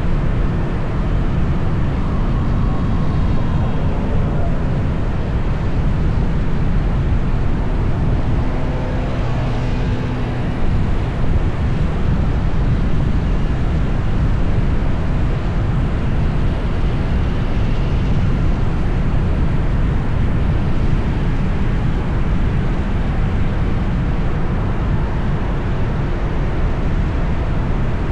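Steady, loud rumble of traffic and road noise, heaviest in the low end, with a faint engine tone drifting past now and then.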